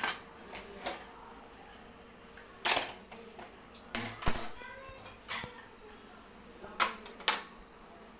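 Steel cookware clanking on a gas stovetop: pots, lids and a ladle knocked and shifted about, giving a scattered series of sharp metallic clinks and knocks, about eight in all.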